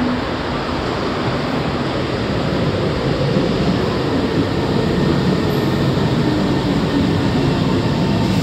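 MRT metro train pulling into the station alongside the platform screen doors, a steady rumble of wheels and motors that grows slowly louder as it comes in.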